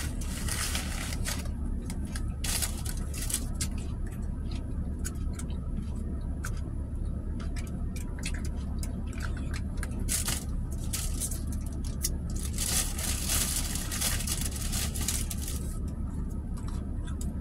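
Plastic packaging crinkling and rustling as a small packet is handled and opened, busiest at the start and again about two-thirds of the way through. A steady low hum from the car runs underneath.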